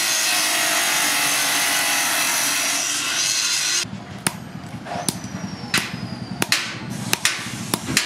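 Abrasive cut-off saw grinding through a thin metal strip, a loud steady hiss that stops abruptly just before halfway. Then a hammer strikes the metal strip on a steel anvil, about half a dozen sharp, irregular blows.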